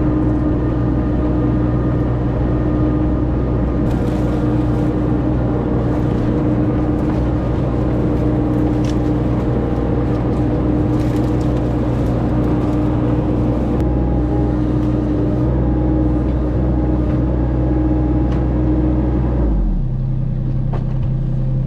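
Kubota U25 mini excavator's diesel engine running steadily as the machine tracks across the ground, with a few faint clicks. The engine note changes about two seconds before the end.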